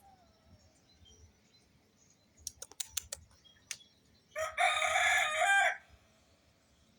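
A rooster crows once, a loud held call of about a second and a half, near the end. It is preceded a little earlier by a few sharp clicks.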